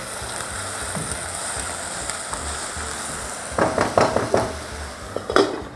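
Chopped onions sizzling in a pot as a spatula stirs them, with a few louder scrapes and knocks of the spatula against the pot a little past halfway and again near the end.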